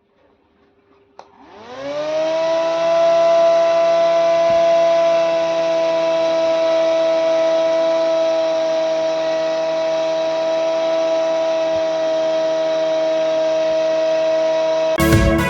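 Small battery-powered DC motor of a homemade mini fan switched on with a click, spinning up within about a second to a steady high-pitched whine. Music comes in just before the end.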